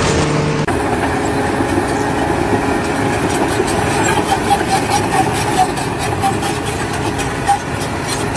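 Loud mechanical noise, like a machine or engine running, with a fast, even clatter.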